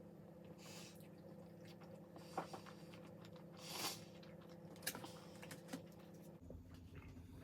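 A person chewing and biting food close to the microphone, with a few crisp bites, one of them longer and crunchier a little past the middle. A steady low hum runs underneath.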